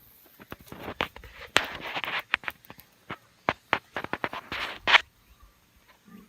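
Irregular knocks, clicks and scraping rustles, stopping about five seconds in.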